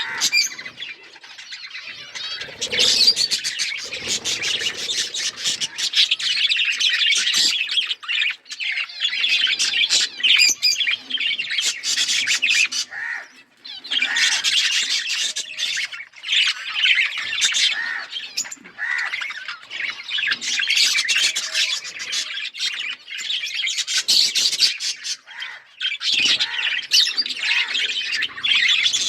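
Several budgerigars chirping and warbling together in a dense, continuous chatter of fast high chirps, with a few brief lulls.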